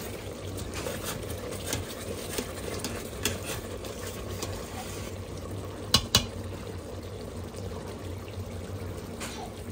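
Chicken curry simmering in an Instant Pot's stainless steel inner pot on sauté mode while a spoon stirs through it, with small scrapes and clicks against the pot. About six seconds in, two sharp clicks come close together.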